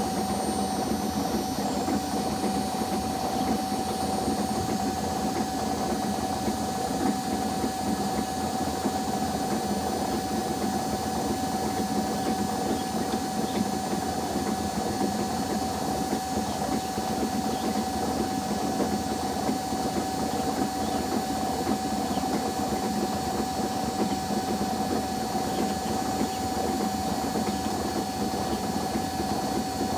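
Front-loading washing machine in its spin cycle, drum spinning at speed with a steady whine and rumble that does not change.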